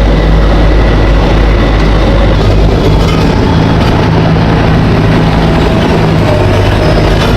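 Heavy diesel road-construction machinery running steadily: a low engine hum under loud, continuous mechanical noise.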